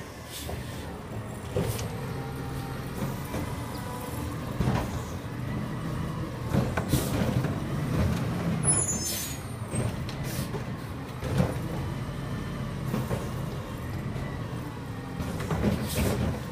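Heil automated side-loader garbage truck running at the curb, its diesel engine rumbling steadily while the lift arm works, with several sharp clunks and hisses as carts are lifted and emptied into the body.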